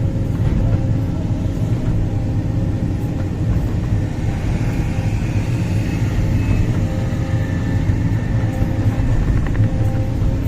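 Large hydraulic excavator's diesel engine running steadily under work, a dense low rumble with a faint high whine coming in about midway.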